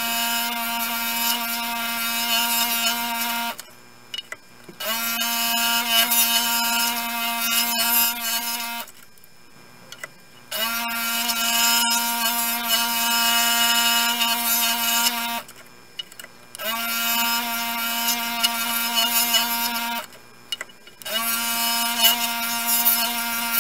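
Electric scroll saw running while cutting a wooden sign, a steady motor hum with a high hiss from the blade. It comes in five stretches of a few seconds each, separated by short quiet gaps, and the pitch rises briefly as each stretch begins.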